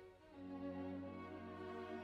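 Background music of slow, held bowed-string notes, like violin and cello, with a new chord coming in about half a second in.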